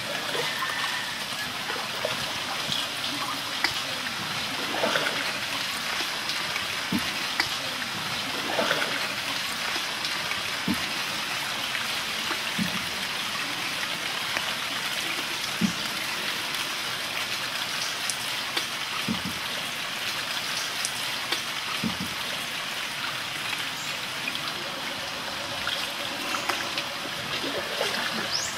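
Water trickling and lapping against a wooden canoe gliding along a river, with a small splash every few seconds.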